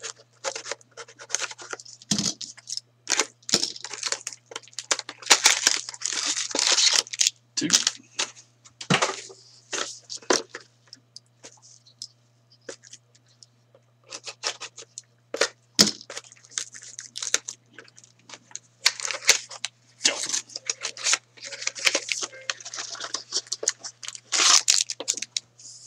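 Plastic shrink wrap being torn off sealed trading-card boxes and crumpled: irregular bursts of crinkling and crackling with sharp clicks of handling, easing off for a few seconds about halfway through.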